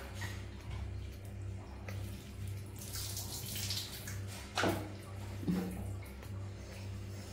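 Bath water splashing in a small plastic bucket as it is scooped and poured, loudest for about a second around three seconds in, followed by two short knocks.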